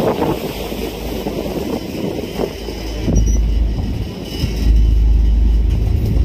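Low, steady rumble of a passenger ferry under way, with wind noise on the microphone; the rumble grows louder about two-thirds of the way in.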